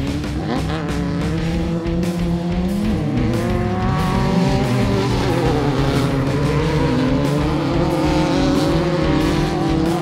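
Off-road race buggy engines revving, their pitch rising and falling as the cars accelerate through dirt corners, with a beat-driven music track underneath.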